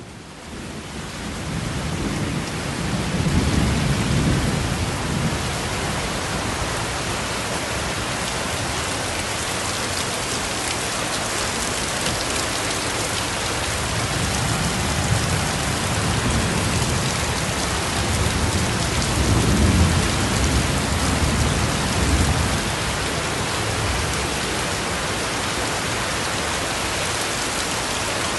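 Heavy tropical-storm rain pouring down with floodwater running in the street, a steady dense hiss. Deep low rumbles swell up several times, strongest about three seconds in and again near twenty seconds.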